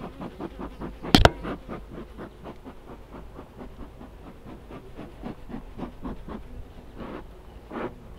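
Metal hive tool scraping wax and burr comb off a wooden hive frame in quick, even strokes, about four a second, with one sharp knock about a second in.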